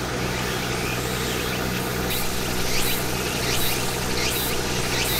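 A steady mechanical hum under a haze of noise. From about two seconds in, a short rising chirp repeats about every 0.8 s.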